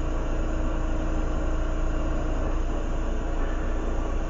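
Lampworking bench torch burning with a steady rushing roar over a constant low hum, while glass is worked in the flame.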